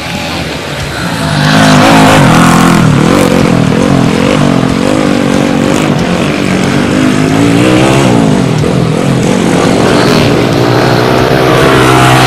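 Cubcross motorcycles racing, their small engines revving up and down with pitch glides as they take the dirt circuit. The sound jumps to full loudness about a second and a half in, with more than one engine heard at once.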